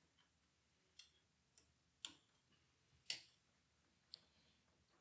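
Sharp plastic clicks and taps from a computer case fan and its snap-in plastic bracket being handled and pulled apart, about five of them roughly a second apart, the loudest a little past the middle.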